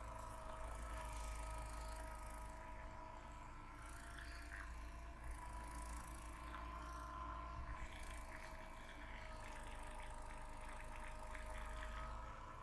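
Faint rubbing and a few light taps of a hand massage, over a steady low electrical hum.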